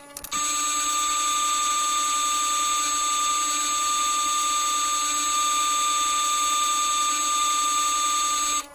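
Electric drill running steadily under load, boring a 13/64-inch hole through steel angle iron, with a steady motor whine; it starts just after the beginning and stops abruptly near the end.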